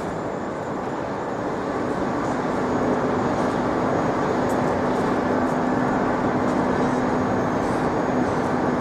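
Steady rumble of a vehicle or machinery on a city street, with a steady low hum, growing a little louder over the first few seconds.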